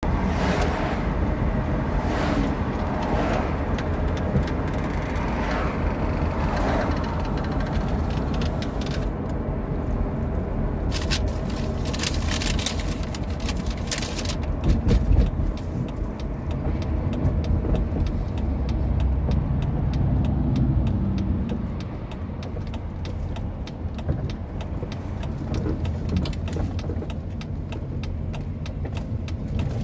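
A moving car heard from inside the cabin: a steady low rumble of engine and tyres on the road, with a run of sharp clicks and rattles about halfway through.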